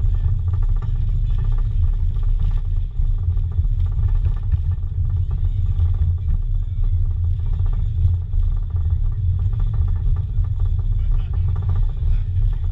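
Steady low rumble of a passenger train car rolling along the track, heard from on board, with a fine rapid rattle over it and no breaks.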